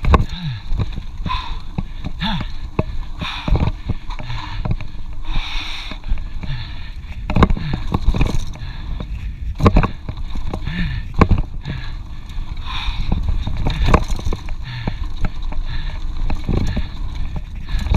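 Mountain bike ridden down a dirt singletrack, heard from a camera mounted on the rider or bike: a constant low rumble of wind and tyre noise, broken by frequent sharp knocks and rattles as the bike goes over bumps.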